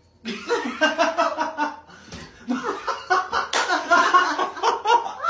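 Laughter in short, choppy bursts, starting about a quarter second in.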